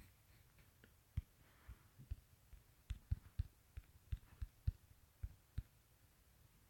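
Finger taps on a smartphone touchscreen while typing on the on-screen keyboard: about a dozen short, irregular taps, each a soft thump with a faint click, starting about a second in.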